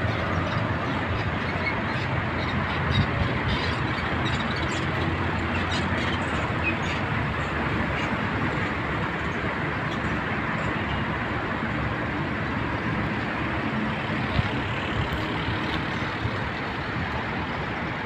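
Steady outdoor background noise, an unbroken rumble and hiss with no clear single event; the dog's yawn does not stand out from it.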